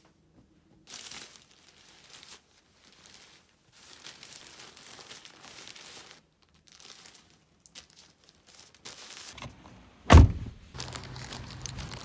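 A knitted jumper being handled and packed into a plastic postal mailer bag: rustling and crinkling in irregular bursts. About ten seconds in comes a single loud thump, then a low steady outdoor hum.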